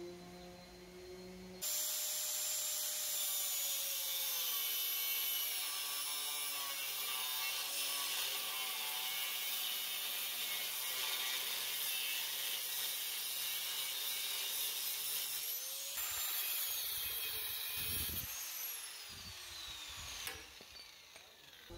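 Angle grinder with a cut-off disc slicing through a rectangular steel tube: a loud high whine whose pitch shifts as the disc bites. Near the end the tool stops and its pitch falls as the disc winds down.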